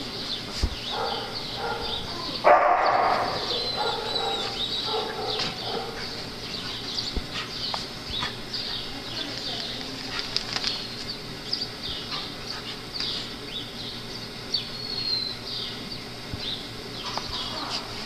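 Small dogs play-fighting, with growls and yips. One loud burst of growling comes about two and a half seconds in, and many short high chirps run throughout.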